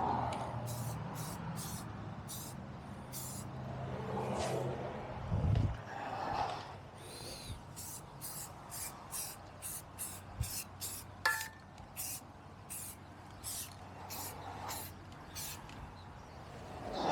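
An aerosol spray can spraying coating onto metal parts in many short, sharp hissing bursts, one every half second or so.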